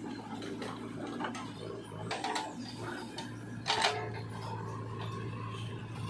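JCB 3DX backhoe loader's diesel engine running steadily under hydraulic load, with a few sharp metallic clanks from the arm and bucket as it dumps soil and swings back to dig. The loudest clank comes a little past halfway.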